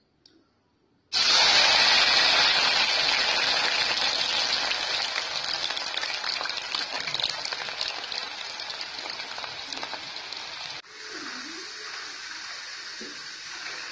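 Raw jackfruit slices going into hot coconut oil in a steel kadai: a loud sizzle starts suddenly about a second in and slowly dies down. Near the end it settles to a quieter, steady sizzle of the chips deep-frying.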